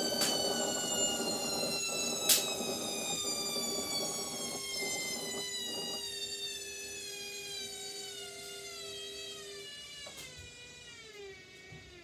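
Indesit front-loading washing machine winding down: the drum motor's whine falls steadily in pitch and fades as the drum slows after spinning. There is a sharp click about two seconds in.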